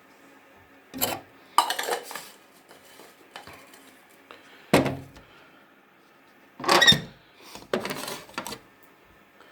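Clinks and knocks of small hard objects being handled and set down on a hard surface, in about five short clusters, the loudest about two seconds in and about seven seconds in.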